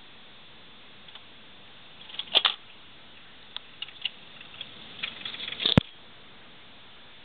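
Scattered clicks and light rattling over a steady hiss, with a cluster of clicks about two seconds in and one sharp click near the end.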